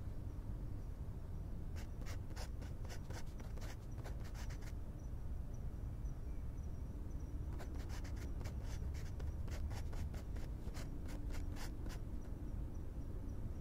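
Two runs of quick, light clicks, several a second, over a steady low rumble, with a faint high thin tone coming and going.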